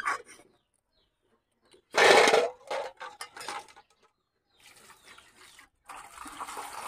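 Boiled eggs set from a steel ladle into a steel bowl, with a loud clatter about two seconds in and a few lighter knocks after it. Near the end, water is poured into the bowl over the eggs with a steady splashing rush.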